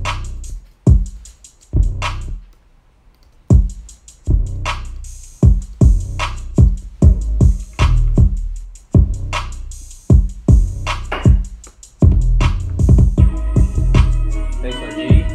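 A trap beat played back from a drum machine program, with heavy 808 bass hits and hi-hats. It starts suddenly and the hits come sparsely at first, then thicker. A synth melody joins near the end.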